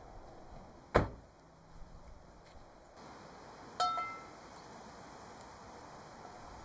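A pickup truck's door shutting with a thud about a second in. Around four seconds in, a steel frying pan clinks down onto a metal grate over a campfire, ringing briefly, with another clink at the very end.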